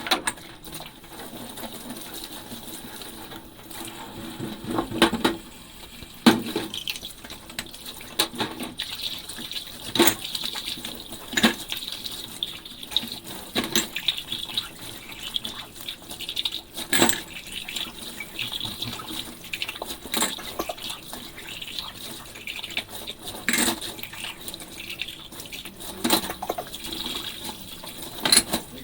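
Dishes being washed by hand in a sink: tap water running and splashing steadily, with irregular clinks and knocks of ceramic and glass against each other and the sink.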